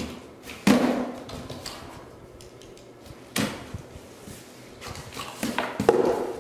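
A cardboard box being handled and opened with a utility knife: three sharp knocks of the box, with rustling and scraping of cardboard and tape between them.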